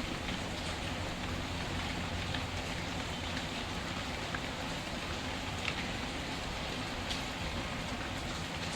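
Steady rain falling, with the occasional sharp crackle of a wood fire scattered through it.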